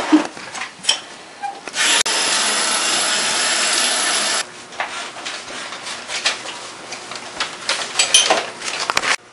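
Kitchen clatter and knocks, with a loud steady rushing noise for about two and a half seconds that starts and stops abruptly, about two seconds in.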